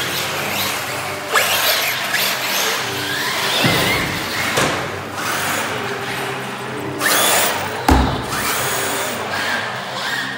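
Electric RC car motors whining as they speed up and slow down, with tyres scrubbing on a concrete floor. Sharp knocks now and then, the loudest about eight seconds in.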